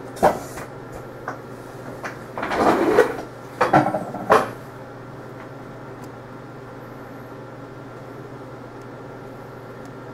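Several short knocks and a longer scraping rustle in the first half, over a steady low hum.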